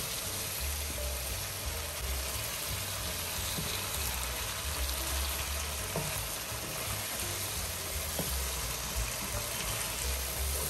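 Potatoes and cauliflower sizzling steadily as they fry in an oily masala in a pan, with a spoon stirring them now and then, over a low rumble.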